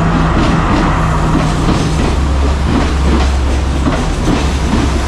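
A diesel passenger train pulling slowly into the station past the platform. A steady low engine drone runs throughout, with the wheels clicking over the rail joints as the carriages roll by.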